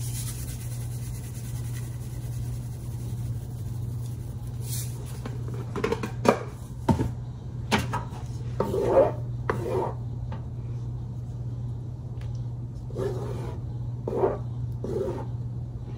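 A wooden spoon stirring and scraping thick curry sauce in a large metal pan, with a few sharp knocks against cookware about six to eight seconds in. A steady low hum runs underneath.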